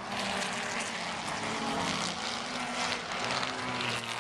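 Historic racing cars' engines running at speed on the circuit, a steady engine drone whose pitch drifts slowly, under wind gusting on the microphone.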